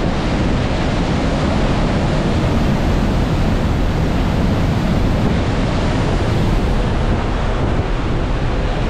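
Steady wind rushing over the microphone, mixed with the wash of sea waves, heard aboard a ferry.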